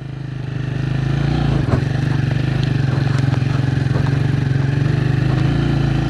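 Vehicle engine running steadily as it travels, getting louder over the first second or so, with a single knock about two seconds in.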